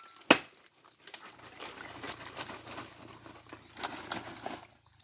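A single sharp knock of wood, then branches and firewood rustling and crackling as they are handled and moved for about three seconds, over a faint steady low hum.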